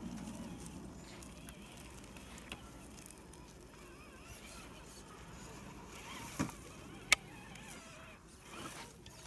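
Traxxas TRX-4 RC crawler driving over woodland ground, a faint wavering motor whine over a low rumble of tyres and terrain. A sharp click about seven seconds in is the loudest sound.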